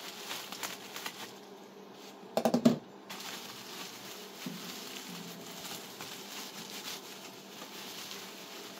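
Plastic bubble wrap being cut open with a knife and pulled apart, crinkling and rustling, with a quick run of loud sharp crackles about two and a half seconds in.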